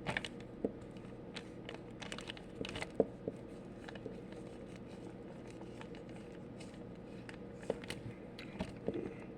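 Scattered small clicks and crackles from things being handled by hand, over a faint steady hum.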